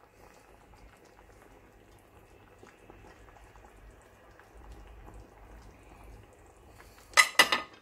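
Sogalbi-jjim (braised beef short ribs) simmering in a stainless steel pan, a faint steady bubbling with small ticks, broken about seven seconds in by a quick clatter of three or four sharp knocks.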